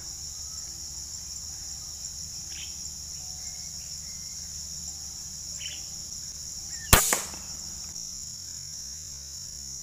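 A PCP air rifle fires a single shot about seven seconds in: one sharp crack with a short ring after it. Steady high chirring of insects runs underneath.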